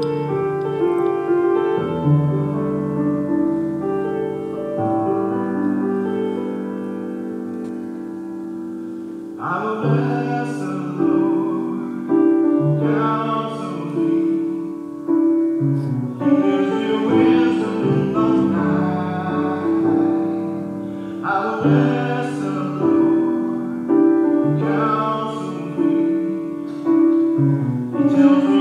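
Piano playing slow chords alone, then about nine seconds in a singing voice comes in over the piano.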